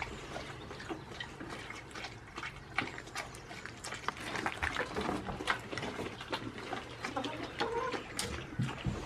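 Goats crunching and chewing slices of fresh fruit fed from the hand: a steady run of many short, crisp crunches.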